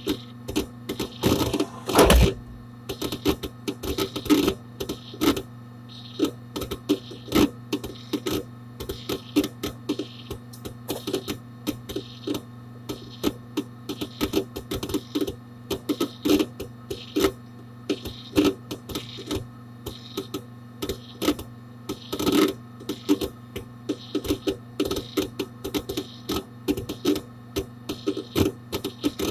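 Hard disk drive inside a Dell Dimension 4700 desktop computer seeking: rapid, irregular clicks and ticks of the head actuator over a steady hum. A louder cluster of clicks comes about two seconds in and again about twenty-two seconds in.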